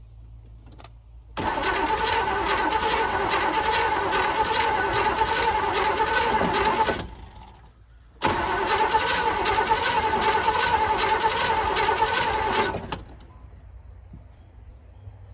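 A 1985 Chevy C10's engine being cranked over by the starter in two attempts of about five seconds each, with a short pause between. It never catches: a no-start that the owner puts down to fuel not reaching the carburettor.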